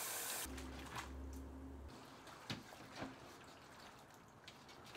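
Kitchen tap running water into a stainless bowl of chopped cabbage, shut off about half a second in; then faint drips and a few soft clicks as wet cabbage is handled in a metal colander.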